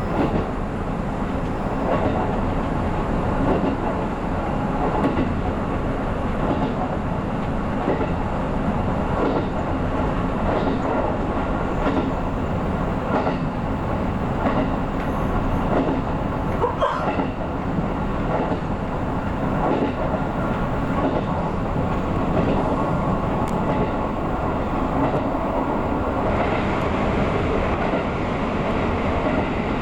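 Running noise of a JR 313 series electric train heard from inside the driver's cab: a steady rumble with regular wheel clicks over rail joints about once a second or so. About four seconds from the end the noise turns harsher and brighter as the train enters a tunnel.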